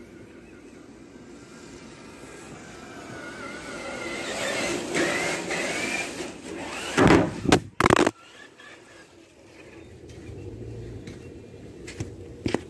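Traxxas TRX-4 RC crawler's electric motor and gears whining, the pitch wavering with the throttle and growing louder over several seconds, then two loud thumps about seven and eight seconds in.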